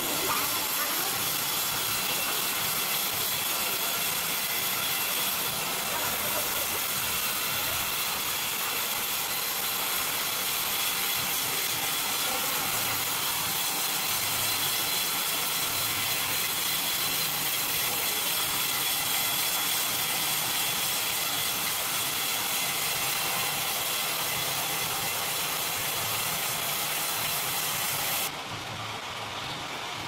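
Horizontal band sawmill running its blade through a log: a steady, unbroken sawing noise with a hiss and constant high tones. The sound drops somewhat near the end.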